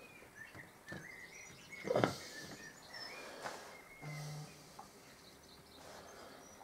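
Faint birdsong from outside, a run of short repeated chirps, with a single soft knock about two seconds in.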